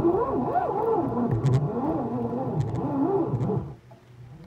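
Fishing reel whirring during the fight with a hooked carp, its pitch wavering up and down, stopping abruptly near the end.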